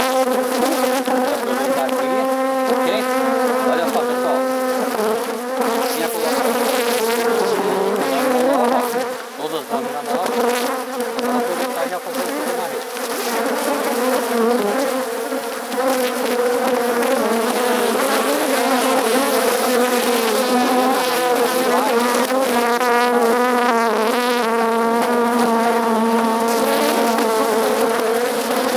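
Honeybees buzzing around an open hive: a loud, steady hum of many bees, with single bees passing close to the microphone in wavering pitch.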